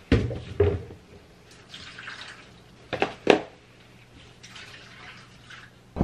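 Water poured from a mug into the drum of a front-loading washing machine, splashing and dripping, with sharp knocks of the mug and a plastic basin near the start and again about three seconds in.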